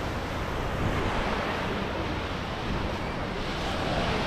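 Sea surf washing on a beach, a steady rushing noise, with wind buffeting the microphone.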